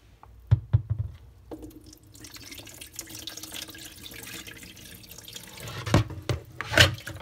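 Rinse water sloshing and pouring off split mung beans in a plastic bowl, with a few sharp knocks about half a second in and again near the end.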